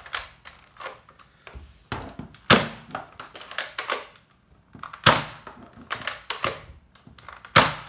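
Nerf Disruptor dart blaster fired three times, about two and a half seconds apart, with the priming handle racked between shots: sharp pops from the spring plunger, with smaller plastic clicks of priming in between. The shots are strong, a sign of a good plunger seal and spring.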